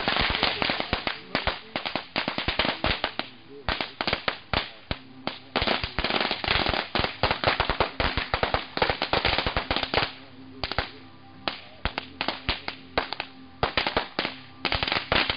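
Firecrackers going off in a fire in rapid, irregular cracks. They come thick and fast for about the first ten seconds, then thin out to scattered pops, with a last quick flurry near the end.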